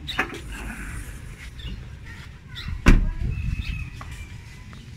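Newly fitted electric tailgate release switch under the rear emblem of a Kia Picanto clicking as it is pressed, then a single loud thump about three seconds in.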